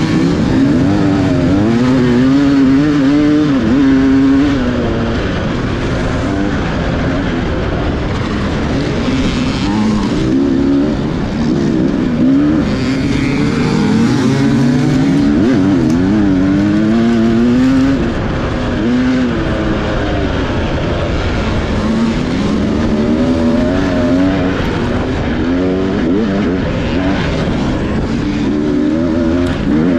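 Off-road dirt bike engine heard from onboard, its revs climbing and dropping repeatedly as the rider works the throttle and shifts while racing over dirt.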